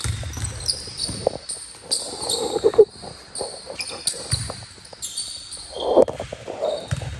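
Basketballs bouncing irregularly on a gym floor, with short high squeaks of sneakers on the court.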